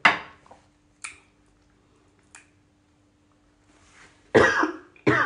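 Close-miked mouth sounds of someone eating pounded yam and black soup: a loud wet smack at the start, two short mouth clicks, then louder wet smacking and slurping near the end.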